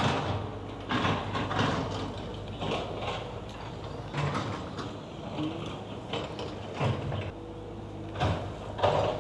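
Inmotion V14 electric unicycle being ridden through turns on concrete: its knobby tyre rolls with a steady low rumble, scattered knocks and scrapes, and a faint motor whine that rises briefly about halfway.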